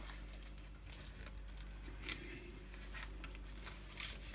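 Aluminium foil lining a baking tray crinkling and rustling faintly under hands working pastry on it, in scattered small crackles with a slightly louder rustle about four seconds in.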